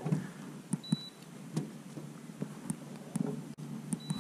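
Two short, high, steady beeps about three seconds apart, the first about a second in and the second near the end, over a low rumble and scattered light knocks.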